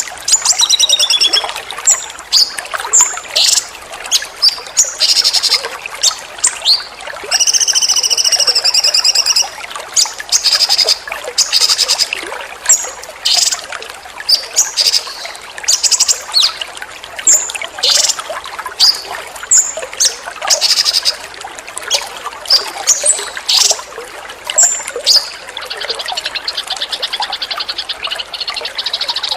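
Rapid bursts of short, sharp songbird calls and chirps, one after another, over a steady trickle of running water. Near the end the bursts give way to a continuous rasping trill.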